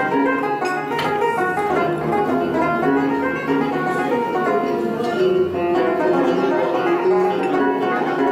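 Algerian string ensemble playing a fast picked melody together on banjos, a mandolin and a guitar-like lute, with many short plucked notes running without a break.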